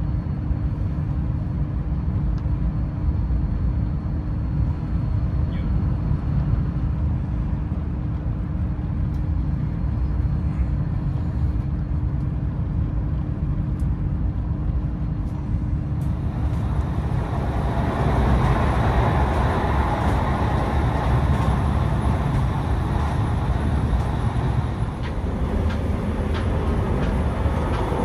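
Cabin noise of a VR Pendolino Sm3 train running at speed: a steady low rumble of the wheels on the track with a faint steady hum. About two-thirds of the way through the hum drops out and the noise turns louder and brighter.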